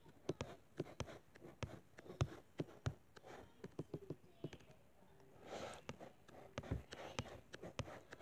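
Irregular light taps and clicks, several a second, with a soft rustle about five and a half seconds in: fingers tapping and handling a tablet as it scrolls.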